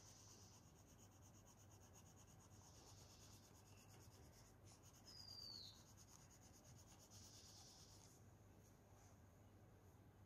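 Faint scratchy rubbing of colour being laid onto paper in strokes, coming and going, a little louder about five seconds in.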